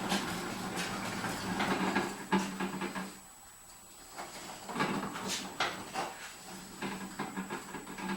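Engine parts and hand tools being handled during assembly: a run of clicks, knocks and clatter in two stretches, with a short lull about three seconds in.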